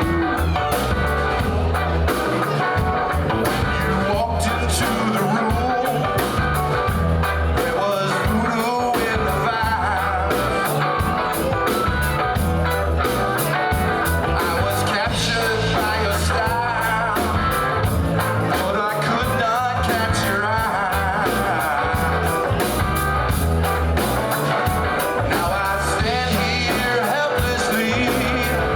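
A song with singing over a steady bass beat, playing from a push-button radio.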